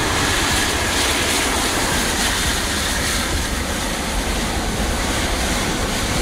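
Airbus A330 MRTT's twin turbofan engines running, a steady, even jet noise.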